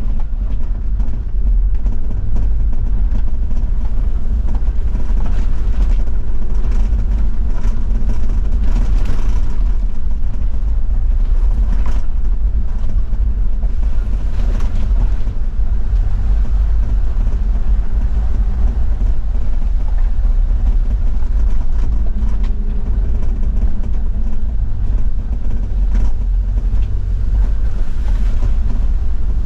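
Toyota Land Cruiser 70's diesel engine running steadily under way, a continuous low rumble with road and tyre noise over it.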